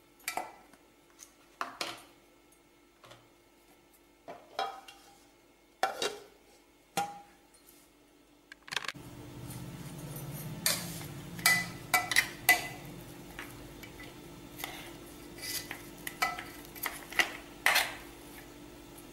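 Stainless-steel kitchenware clinking and knocking: a few separate knocks with a short ring in the first half. After about nine seconds a steady low hum comes in, with a quicker run of clinks and scrapes as ground date paste is scraped out of a steel mixer jar onto a steel plate.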